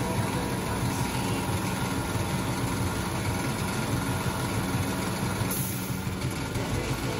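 Small piston machine running steadily with a fast, even throb, at a steady level throughout. A short high hiss comes about five and a half seconds in.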